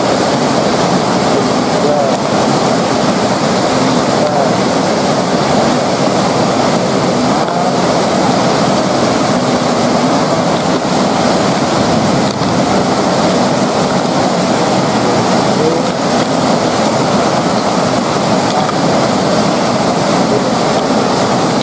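Steady heavy rain falling on wet paving stones: a loud, even hiss with no letup.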